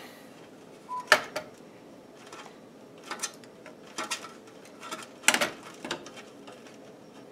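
Hands fumbling a compression fitting and soft tubing against a water-cooling fitting: a string of irregular clicks, taps and scrapes, loudest about a second in and again around five seconds. The compression fitting is not meeting its threads evenly and will not screw on.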